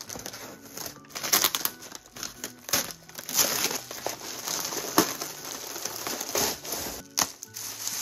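Brown packing paper on a taped parcel being cut and torn open by hand, crumpling and ripping in irregular bursts, with bubble wrap crinkling as it is handled near the end. Soft background music underneath.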